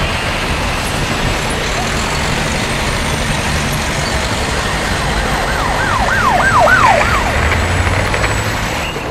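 Steady city street traffic noise, with an emergency-vehicle siren yelping in about five quick up-and-down sweeps about five seconds in, followed by a heavy engine rumble swelling briefly.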